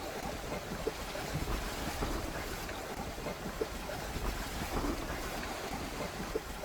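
Steady wind noise on the microphone and water rushing past a trimaran's hulls under sail, with a few faint knocks.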